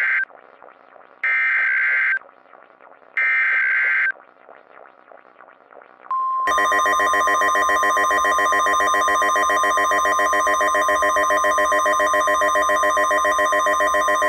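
Emergency Alert System SAME header: harsh one-second bursts of digital data screech, about two seconds apart. About six seconds in, a steady 1050 Hz weather-radio alert tone starts, layered with a loud, rapidly pulsing buzzing tone, signalling the start of a blizzard warning.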